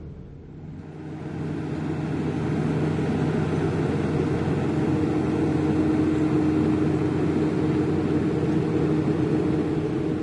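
Heavy diesel engine of earthmoving machinery running, growing louder over the first couple of seconds and then holding steady under load, with a steady whine coming in about halfway through.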